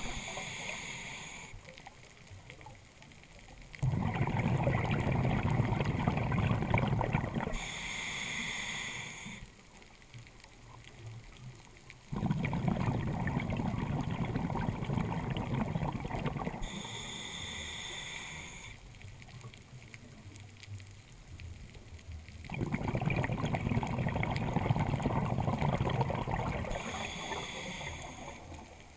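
A scuba diver breathing through a regulator underwater: short hissing inhalations through the demand valve alternate with longer rushes of exhaled bubbles, three exhalations of about four seconds each, a full breath roughly every nine to ten seconds.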